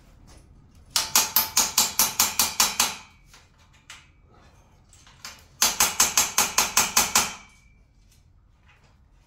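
Ratchet wrench clicking in two quick runs of about ten even clicks each, about five a second, as bolts on a steel pull-up bar bracket are turned.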